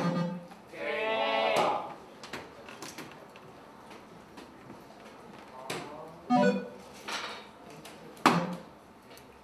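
Electronic soft-tip dartboard machine playing a warbling electronic jingle about a second in, after a dart lands in the triple 18, followed later by a few shorter electronic blips. Near the end a soft-tip dart hits the board with a sharp tap.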